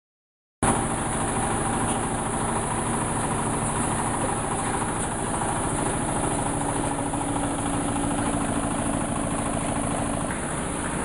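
Engine-driven wood crusher machine running steadily, cutting in abruptly about half a second in.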